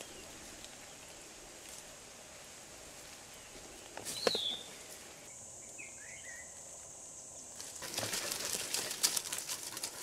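Undergrowth rustling and crackling as feet push through dense forest brush, picking up from about eight seconds in. Before that it is quiet, apart from one sharp snap with a short falling high chirp about four seconds in.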